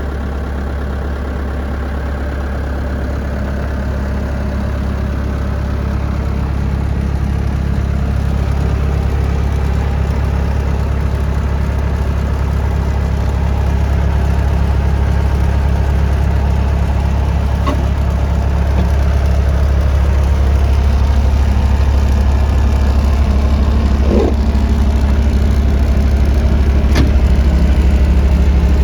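Caterpillar 259B3 compact track loader's diesel engine running steadily at idle, getting gradually louder, with a few faint clicks in the second half.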